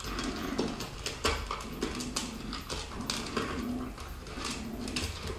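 Small puppy eating from a plastic bowl on a tiled floor: irregular clicks and crunches, a few each second.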